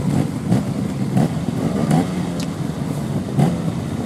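Trials motorcycle engine running at low revs, with about five short throttle blips as it works over rocks.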